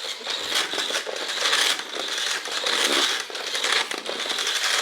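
WPL D12 remote control truck driving on a hard floor: a steady high whine from its electric motor and gears, with the tyres scrabbling and skidding, the noise surging and dropping with the throttle.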